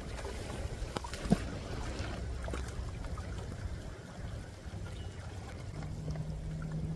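Water trickling and dripping as a magnet-fishing magnet and its wet rope are hauled in. Scattered small clicks are heard, with one sharper knock about a second in.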